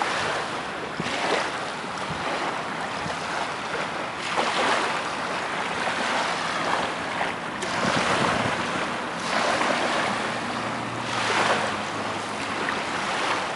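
Small waves washing onto a sand beach, the rush of water swelling and falling back every two to three seconds, with wind on the microphone.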